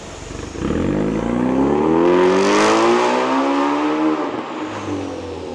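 Ford Mustang EcoBoost's 2.3-litre turbocharged four-cylinder, on a RES full exhaust system, pulling away under throttle. The engine note jumps up about half a second in and climbs steadily for about three seconds, then eases off and fades as the car moves off.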